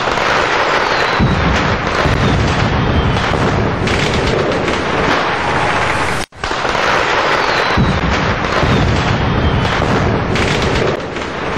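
Fireworks going off: a dense, continuous run of bangs and crackles, broken by a brief drop-out about six seconds in, after which the same stretch seems to play again.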